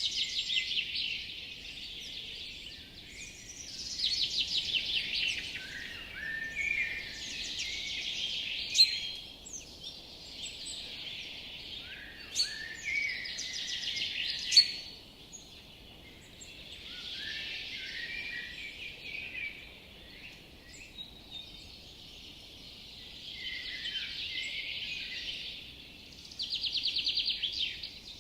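Several songbirds singing together in a forest, overlapping phrases and fast trills, with a few sharp, loud notes standing out about nine, twelve and fourteen seconds in, over a faint steady hiss.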